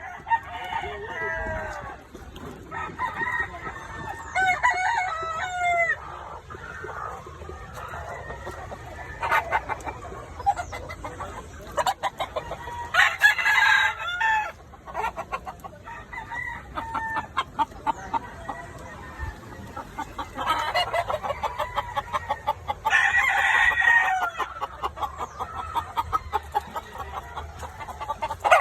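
Roosters crowing several times, each crow drawn out over a second or two, with chicken clucking between the crows.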